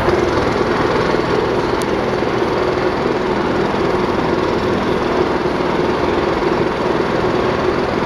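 Jackhammer running without a break, a loud, steady, rapid mechanical hammering.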